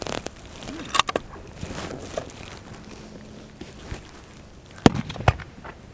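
Rifle fire on a fullbore target range: a sharp report about a second in, then two more half a second apart near the end, the first of those the loudest.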